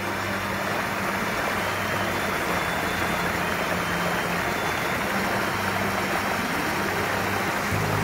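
Steady rush of a mountain headwater stream, an even hiss of flowing water that grows slightly louder.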